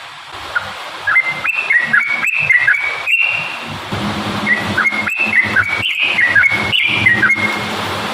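Yellow-vented bulbul (trucukan) singing: two phrases of quick whistled notes that step up and down in pitch, the first about a second in and the second starting about four seconds in, each lasting roughly three seconds.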